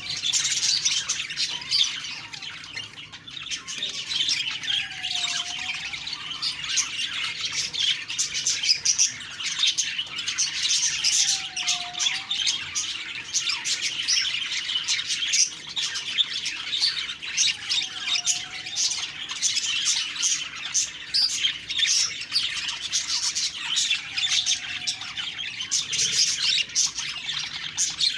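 A group of budgerigars chattering and warbling continuously in fast, busy squeaks and chirps. A lower swooping note, dipping and rising again, repeats about every six seconds beneath the chatter.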